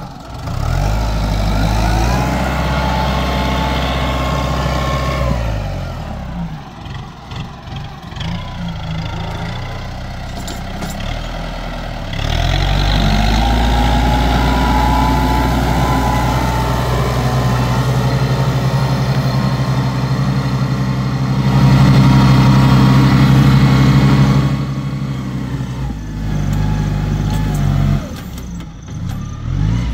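Farm tractor engine running under load while pulling a rotary tiller through soil. It eases off a few seconds in, picks up again at about twelve seconds, is loudest a little after twenty seconds, and drops back near the end.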